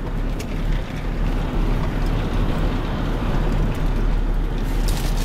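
Steady low rumble of a car driving slowly, heard from inside the cabin: engine and road noise with no change in pace.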